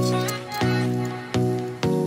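Background music: a slow melody of pitched notes, each starting sharply and ringing on, about three in two seconds.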